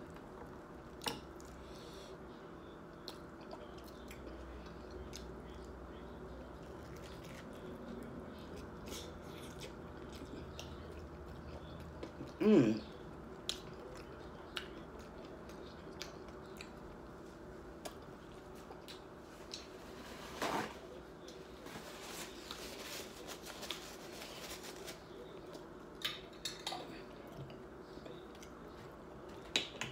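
Quiet eating sounds of a person chewing tacos: scattered small clicks and mouth sounds over a low room background, with a brief voice sound about twelve seconds in.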